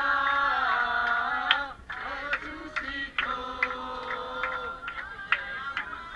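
A group of young voices singing together inside a crowded bus, in long held notes with short breaks between phrases, with a few sharp hits scattered through the singing.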